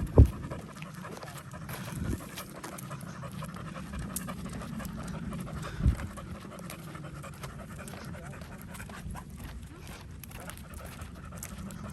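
A dog panting hard and steadily, the heavy panting of a dog overheated on a walk in hot weather. Two sharp low thumps stand out, one just after the start and one about six seconds in.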